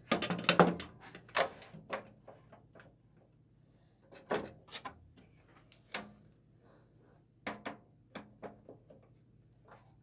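Knocks and clatters of a homemade cardboard drum-sander drum being handled and slid onto a Shopsmith spindle: a quick cluster of knocks in the first second, then single knocks every second or two.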